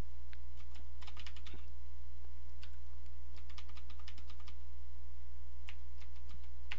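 Computer keyboard typing in uneven runs of keystroke clicks, over a steady low hum.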